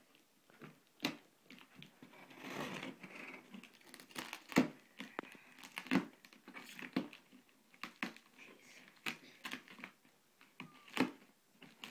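A taped cardboard shipping box being worked open by hand: irregular crackles, clicks and rustles of cardboard and packaging, with a longer stretch of tearing about two to three seconds in.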